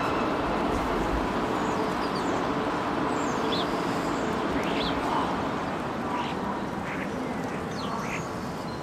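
European starlings giving brief whistled calls now and then, a dozen or so, over steady city street noise.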